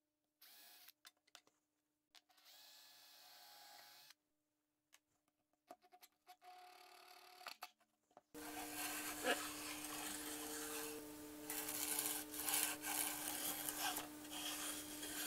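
Near silence, then from about eight seconds in a faint, uneven scratching and rubbing: a pencil tip and a wooden trammel strip dragging across a plywood board as a circle is drawn, over a low steady hum.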